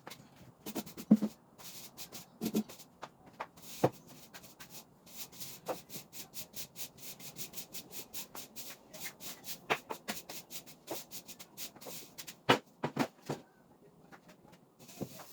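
Cleaning: a run of short rubbing and scrubbing strokes against a hard surface, with a few sharper knocks between them.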